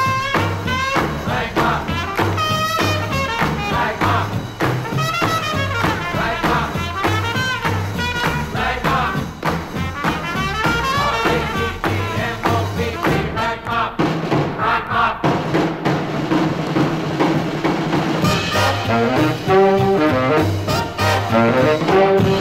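Swing-style band music with brass, played back from a 1958 RCA Victor stereophonic demonstration LP. A louder brass passage builds in the last few seconds.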